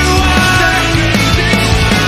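Loud distorted hard-rock music, with guitars and drums.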